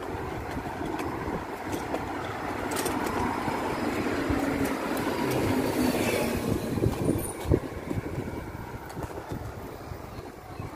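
Rolling road noise while travelling along a street: a steady rumble with wind on the microphone. It grows louder a little past the middle, with a few sharp knocks soon after.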